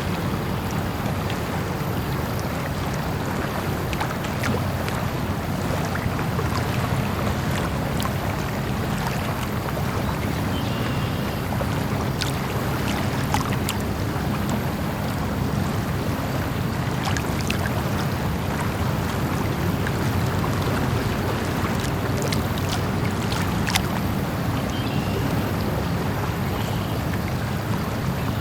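Lake ambience: a steady wash of water, with small lapping splashes and ticks scattered through it.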